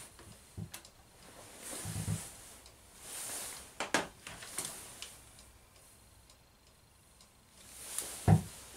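Handling noise: clothing rustling and several scattered knocks and clicks as gear is moved about on a table and a camera is picked up, the loudest a dull thump near the end.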